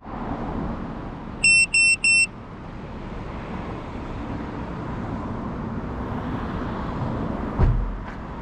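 Three short, evenly spaced electronic beeps, all on the same high pitch, about a second and a half in, over a steady rushing background. A short low thump comes near the end.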